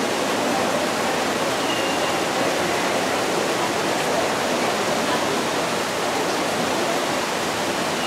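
Steady rush of falling water from an indoor water feature, an even hiss with no rhythm or change.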